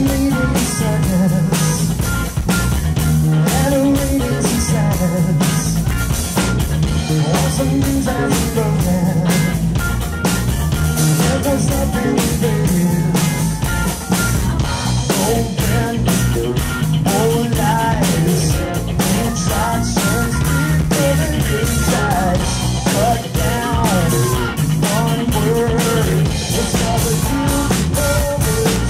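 Live rock band playing: electric guitar and drum kit driving a steady beat, with a man singing lead vocals over it.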